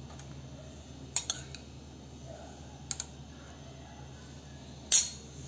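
Steel spoon clinking lightly against a glass while chopped strawberries are spooned onto a milkshake: a few short clinks, the loudest near the end.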